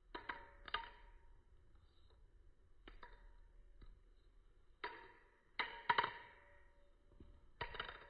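Butterfly knife (balisong) being flipped: about seven sharp metallic clicks at irregular spacing as the handles and blade knock together, each with a short ring. Several come in quick pairs, the loudest a close group a little past the middle.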